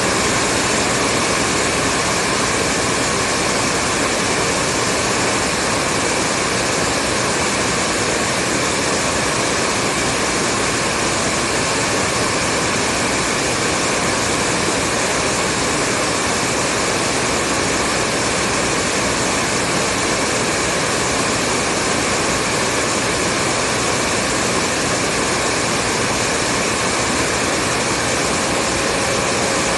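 Hair dryer running continuously on a steady setting, an even whooshing blow with a faint whine of its fan motor.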